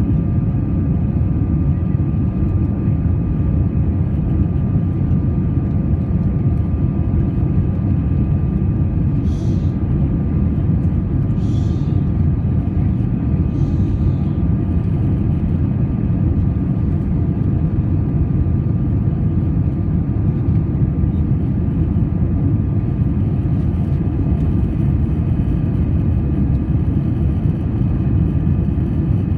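Airbus A320 in flight heard from the cabin: a steady, unchanging engine and airflow drone, deep and muffled, with a faint constant whine on top. Three brief soft hisses come near the middle.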